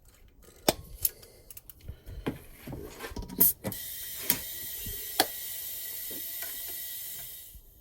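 Clicks and knocks of a portable air compressor and its air hose being handled. About three and a half seconds in, a steady hiss of compressed air starts and runs for roughly four seconds before stopping, with a couple of sharp clicks during it.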